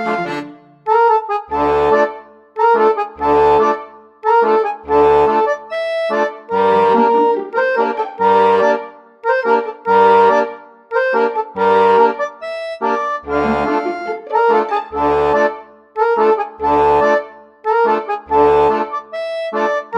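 Background music: a melody in pitched notes over a steady low bass beat that comes about every second and a half.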